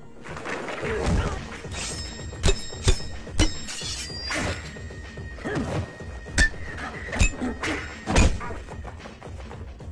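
Martial-arts film fight sound effects: about half a dozen sharp hits and thuds with swishing swings between them, over a film score.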